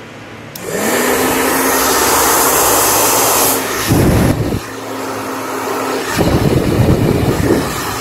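A 2300 W hand-held hair dryer, fitted with a replacement fan, is switched on. Its motor spins up within about a second into a steady whine under loud rushing air, and it runs quieter from about four and a half seconds in. The air blast buffets the microphone twice, about four seconds in and again from about six seconds in.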